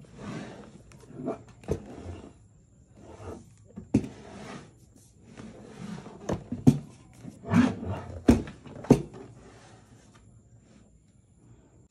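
Hands handling a rigid cardboard presentation box: the palms rub and slide over its surface, and the box knocks and thumps several times as it is tipped up, turned over and set back down on the table. The sharpest knock comes about four seconds in, with a cluster of knocks between six and nine seconds.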